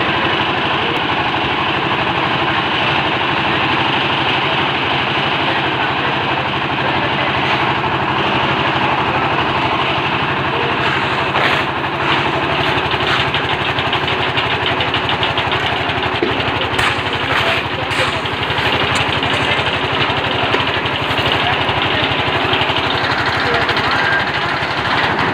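Concrete mixer machine's engine running steadily, with a few sharp knocks in the middle.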